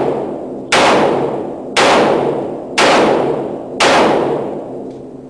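Gunshots fired one at a time at a steady pace of about one a second, four in all, each sharp crack trailing off in a long echo.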